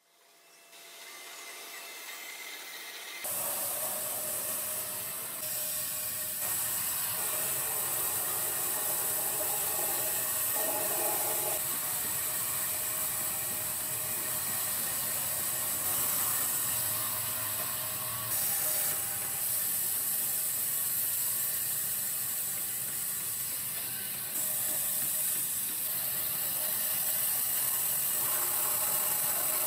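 Bandsaw running, its blade cutting along a curved line through an old weathered wooden block: a steady high hiss of the blade in the wood. It fades in over the first few seconds.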